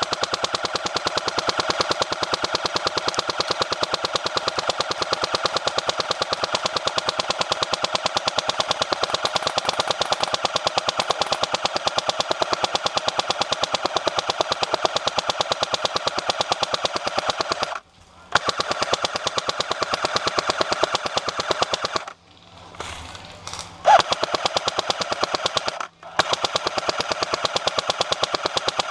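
Airsoft M60 firing long full-auto bursts: a rapid, even mechanical rattle that stops briefly about 18 seconds in, again for a couple of seconds around 22 seconds, and once more just after 26 seconds.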